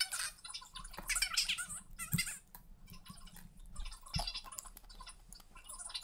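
Nut shells being cracked and picked apart by hand, with irregular crackly snapping and shell pieces clicking onto a glass plate, and a couple of soft knocks about two and four seconds in.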